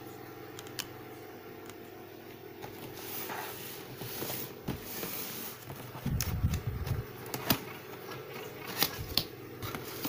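A cardboard box being opened by hand: rubbing and scraping on the cardboard, a few sharp clicks and snaps, and low thumps from about halfway as the flaps are pulled open, over a steady low hum.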